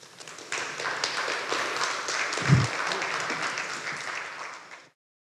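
Audience applauding at the end of a talk, building up in the first second and fading out, with a short low bump about two and a half seconds in.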